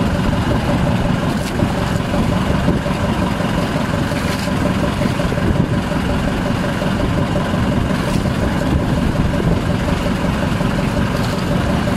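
Outrigger fishing boat's engine running steadily as a continuous low drone, with a few light clinks of spoons against plates and pots.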